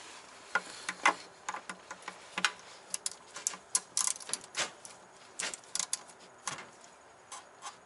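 3/8-drive ratchet with an extension clicking in irregular runs of sharp ticks as it loosens the drain plug on a composite oil pan.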